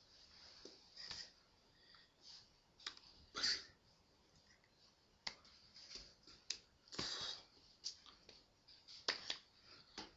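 Faint, irregular short rustles, taps and breath puffs from a person signing without voice: hands and sweater sleeves brushing and striking, and breaths through the nose and mouth.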